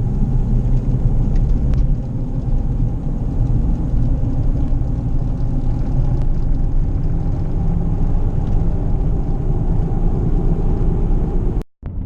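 A 2005 Ford Escape being driven, heard as a steady low rumble of engine and road noise that drops out abruptly near the end.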